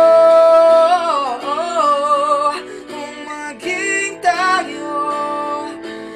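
A singer holds a long high note, ending about a second in. The voice then bends through a wavering run of notes without clear words, and sings more short phrases over guitar accompaniment.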